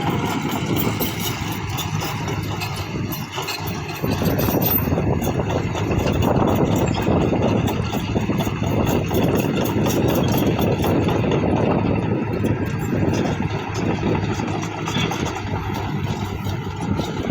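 Kobelco SK220 excavator's diesel engine running steadily, getting louder about four seconds in.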